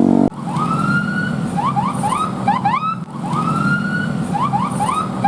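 Bus telolet horn, a set of air horns played as a tune: one long rising note, then a quick run of short rising toots. The phrase plays twice over a low steady hum.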